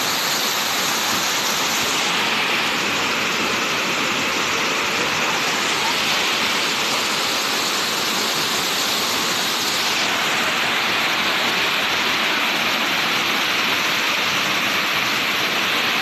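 Waterfall: a steady, even rush of water pouring over rock into a pool, its tone shifting slightly twice.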